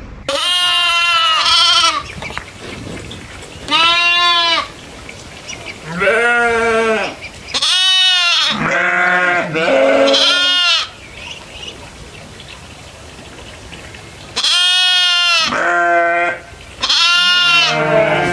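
Goats bleating repeatedly: about nine wavering calls, each roughly a second long, at differing pitches, some higher and some lower.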